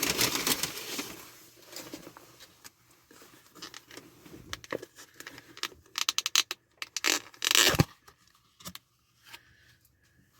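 Plastic takeout food bowl being handled: crinkling and scraping with scattered sharp crackles, a quick cluster of crackles about six seconds in and two louder rustles shortly after.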